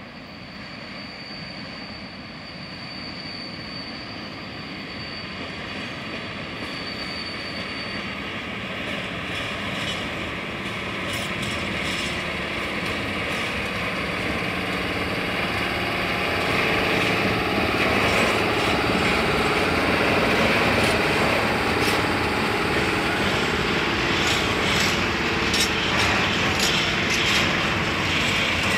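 PKP Cargo ET22 electric locomotive hauling a long train of open freight wagons, approaching and passing. The sound grows steadily louder for about the first fifteen seconds, then holds at the steady roll of the wagons with a rapid clatter of wheels over the rail joints.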